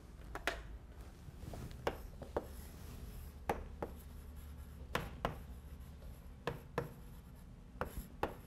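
Chalk writing on a chalkboard: irregular taps and short scratching strokes as a box and a label are drawn.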